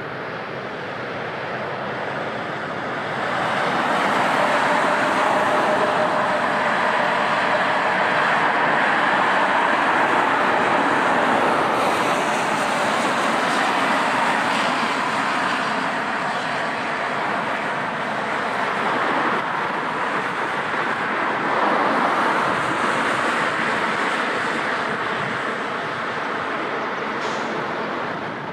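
Jet airliner's engines passing close by, a loud rushing noise that swells about three seconds in, stays loud for most of the time, and eases a little near the end.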